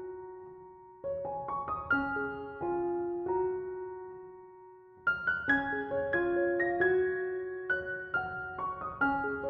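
Background piano music: a slow melody of struck notes left to ring, one note fading away before a new phrase begins about five seconds in.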